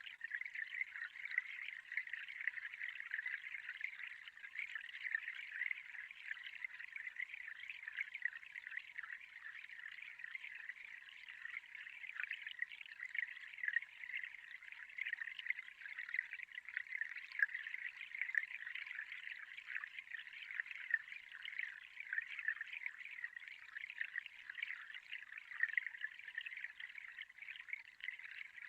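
Steady trickling water, thin and hissy with no bass, crackling unevenly in loudness.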